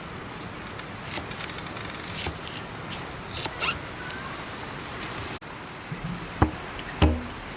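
Light scattered clicks and rustling over a steady hiss, then sharp knocks with a low thud, one roughly every half second, starting near the end.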